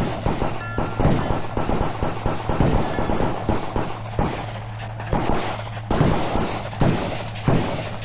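Many rapid gunshots from several shooters firing at once on an outdoor range, dense at first and thinning to a few single shots about a second apart near the end, over a steady low hum.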